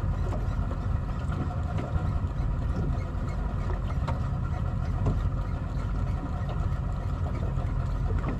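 Boat engine running steadily under way, a constant low drone with the wash of water and wind over it.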